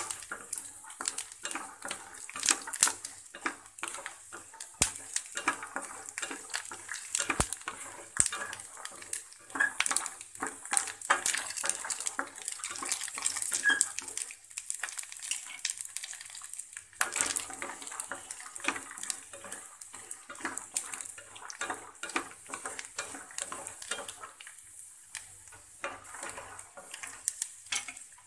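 Wooden spatula stirring raw peanuts frying in a stainless steel pan: quick scrapes and knocks against the metal and the nuts rattling, over a light sizzle.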